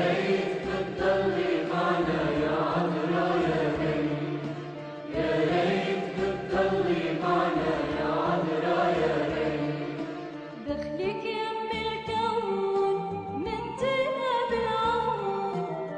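An Arabic Marian hymn: singing over a full, choir-like musical backing. About eleven seconds in the texture thins to a single melodic line.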